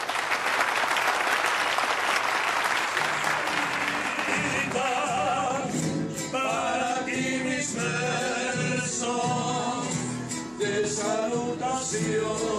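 Clapping, then about four seconds in a mariachi band starts playing, with guitars, a pulsing bass and a solo voice singing.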